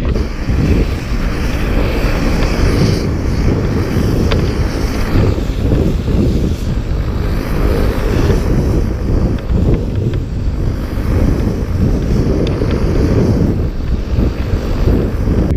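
Heavy wind rumbling and buffeting on the microphone.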